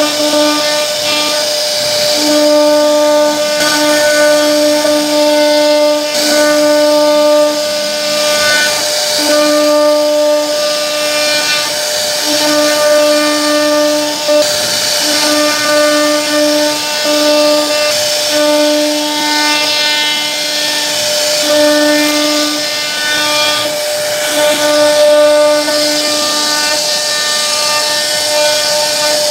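CNC router spindle running and cutting into a wooden board with a small carving bit: a loud, steady high whine over hiss, with a lower tone that breaks off and comes back every second or two as the bit works along the carving.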